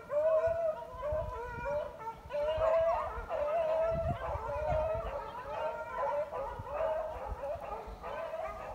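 A pack of beagles baying together. Several long, pitched voices overlap and carry on without a break.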